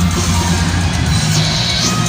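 Heavy metal band playing live, with electric guitar, bass and drums.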